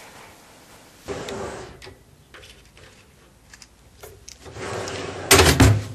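Handling noise from a handmade paper blister pack as a cube is pressed out of it: a rustle about a second in, scattered small clicks, then a louder rustle building to a clatter near the end.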